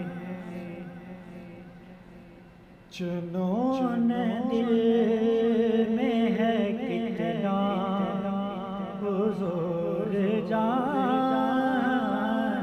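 A man's voice singing an Urdu naat in long, wavering melismatic notes. The first held note fades away, and a new, louder phrase comes in about three seconds in.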